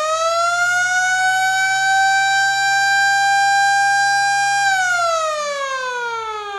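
Siren-type school bell sounding the signal to enter class. A single siren tone holds a steady pitch for about four and a half seconds after winding up, then glides steadily down in pitch.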